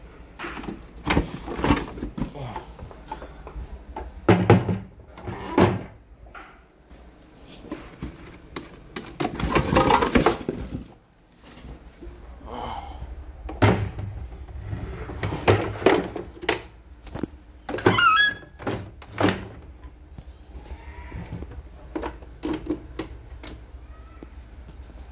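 Handling noise while a CNY portable embroidery machine is lifted out of its polystyrene foam packing and cardboard box and set down: scattered knocks and thunks, with a longer stretch of rubbing noise about ten seconds in.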